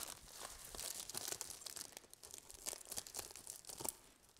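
Clear plastic packing wrap and tape being cut and peeled off by hand: irregular crinkling and tearing crackles.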